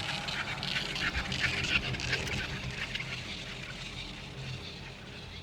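Chairlift running during a ride, with a steady low hum under a dense crackling rattle. The rattle builds to its loudest about one to two seconds in, then eases off.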